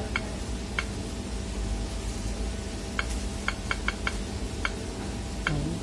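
Convotherm combi oven running with a steady low mechanical hum, with about nine short, sharp, high-pitched ticks scattered through it, most of them bunched together around the middle. The oven is in diagnostics mode, with its ConvoClean chemical-wash pumps being switched on.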